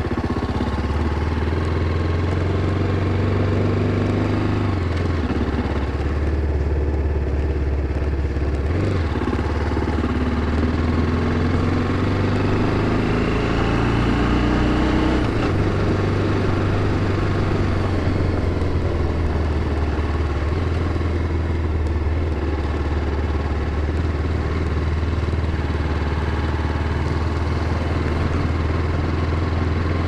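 TVS Apache RR 310's single-cylinder engine running while the bike is ridden slowly. Its note holds steady, then steps up or down to a new pitch every few seconds as the throttle changes.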